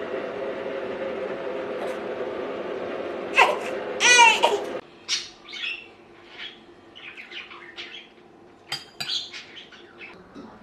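A bird calling, a quick run of chirps about four seconds in, over a steady hum that stops abruptly a little later; after that, scattered light clinks and short chirps.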